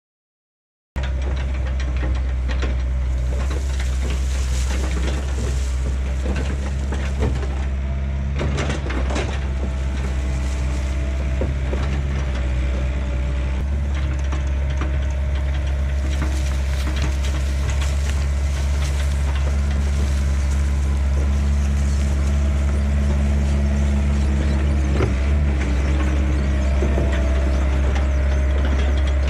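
Yanmar B50-1 mini excavator's diesel engine running steadily. It starts abruptly about a second in, with a few knocks from the machine and a slight rise in level in the second half.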